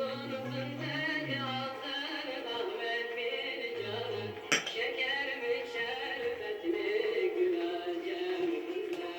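Background music with a held, slowly moving melody line in a Turkish folk style, and one sharp click about halfway through.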